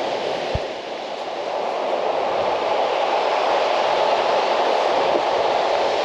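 Steady rushing of storm surf breaking on a pebble beach, swelling a little about two seconds in.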